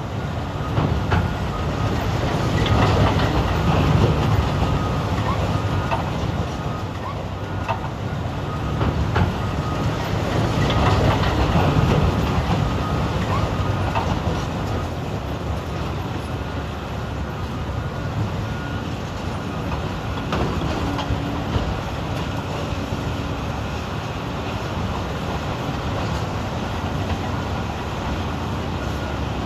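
Large Caterpillar 395 hydraulic excavator's diesel engine working under load, with a steady low rumble. Scattered clatters and knocks of rock are heard as the bucket digs and dumps into a haul truck, swelling twice in the first half.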